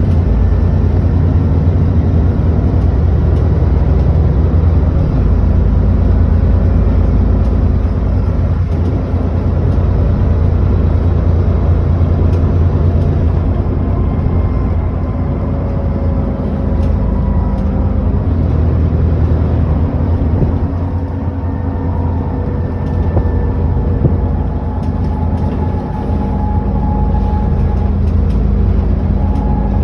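Alexander Dennis Enviro400 double-decker bus under way, its engine and drivetrain droning steadily, with a thin whine that rises slowly in pitch a few times as the bus picks up speed.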